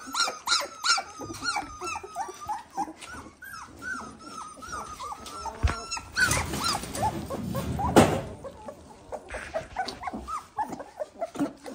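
Dalmatian puppies squealing and whining, many short high calls overlapping in quick succession. About six to eight seconds in there is a stretch of rustling and clatter, ending in a sharp knock.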